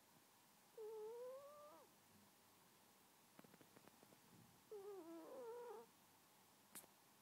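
A cat snoring in its sleep: two wavering, squeaky tones about a second long, with a faint crackle between them and a single sharp click near the end.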